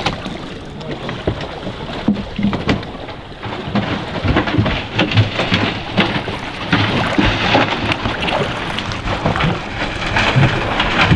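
Water rushing and splashing around a camera held in the water, with scattered knocks and thumps, as a hooked lingcod on a swimbait jig is reeled up to the surface and lifted out beside the boat.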